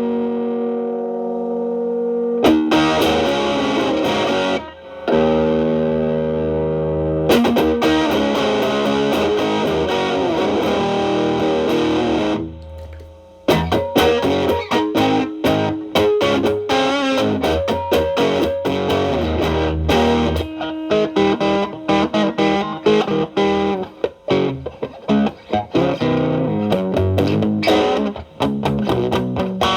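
Fender Telecaster played through an MXR Distortion+ stacked into a Boss SD-1 overdrive, into a Marshall Valvestate amp's clean channel, with the MXR's distortion set low for a light crunch. A held chord rings out first, then come chords and quick single-note licks, with a brief break about thirteen seconds in.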